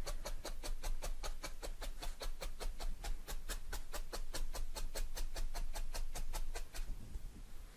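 A felting needle jabbing rapidly through a flat layer of wool and its backing into a dense foam felting mat: a quick, even run of ticks, about five or six a second, that stops near the end. The needle striking the mat is what makes the ticks, which is normal when felting a flat piece.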